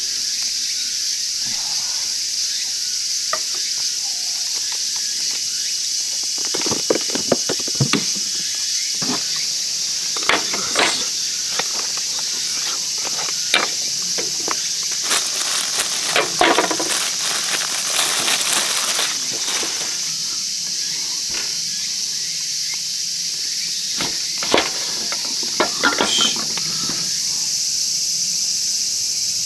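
A steady, high-pitched drone of insects, with scattered light knocks and clicks from a knife cutting a lemon on a wooden cutting board.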